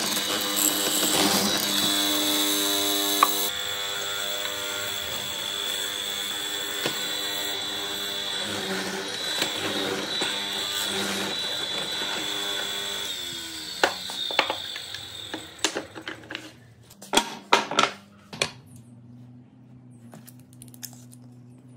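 An electric power tool's motor running steadily, then switched off and winding down about two-thirds of the way through, followed by a series of sharp knocks and clicks.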